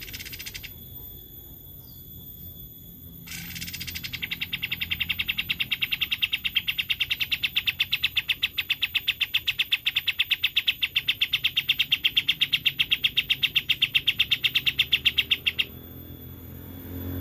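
Kapas tembak bird song: a brief burst of notes, then a long, very fast trill of sharp notes, several a second, that grows louder for about twelve seconds and stops abruptly.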